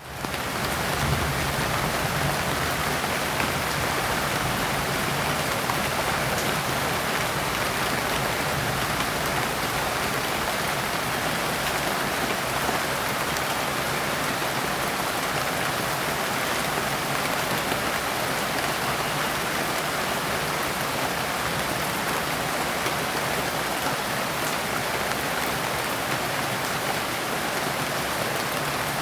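Steady rain falling on leaves, a dense even patter of drops that fades in within the first half second and holds at a constant level.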